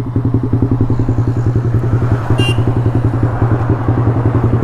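Yamaha R15 V3's single-cylinder engine idling steadily through a free-flow aftermarket exhaust with no dB killer fitted, giving a very loud, even, pulsing exhaust note. A brief click about two and a half seconds in.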